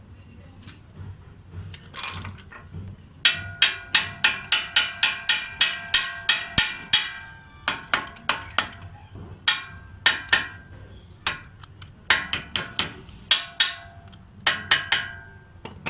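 Hammer striking steel, tapping the link and its bush into place on a Honda Activa's front suspension: a few light knocks, then from about three seconds in, runs of quick ringing metallic blows about three a second, with short pauses between the runs.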